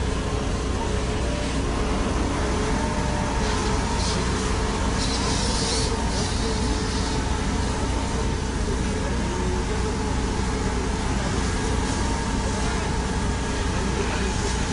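A heavy vehicle engine running steadily, with short bursts of hiss a few seconds in.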